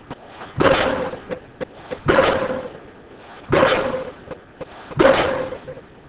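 Impact pile driver hammering a pile: four heavy blows about a second and a half apart, each a sharp strike that rings on for more than half a second.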